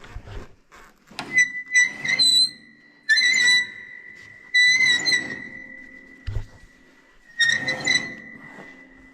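Steel saw blade being sharpened: a series of short metal-on-metal scraping strokes, each leaving the blade ringing with a steady high tone that dies away slowly.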